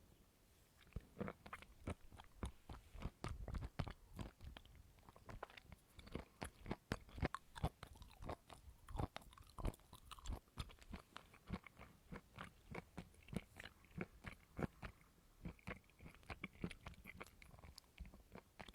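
Close-up chewing and crunching of coconut: many quick, irregular crunches and wet clicks that start about a second in.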